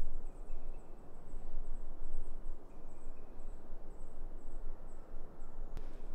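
Woodland ambience: a steady rush of noise with a series of short, very high, thin chirps repeating through it, and a single sharp click near the end.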